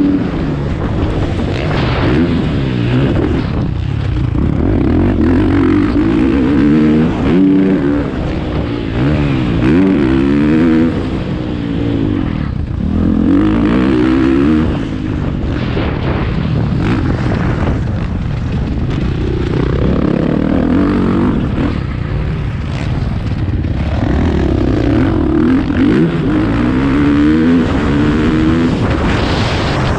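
Dirt bike engine heard from on the bike itself, revving hard with its pitch climbing and dropping back again and again as the rider works the throttle around a motocross track.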